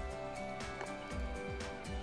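Background music with a steady beat of low drum hits about twice a second under sustained tones.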